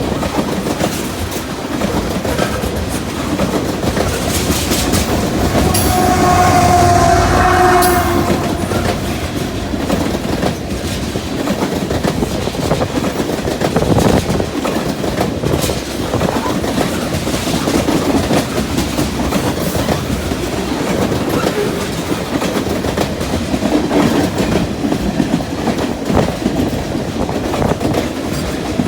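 Freight cars of a CN train rolling past close by: a steady rumble with the clickety-clack of wheels over rail joints. About six seconds in, a pitched tone sounds for about two seconds over the rumble.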